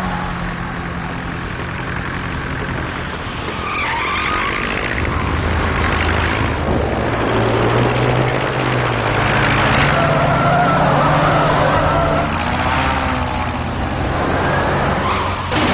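Engines running hard at speed, a steady drone that climbs about five seconds in, with high wavering squeals of skidding tyres over it.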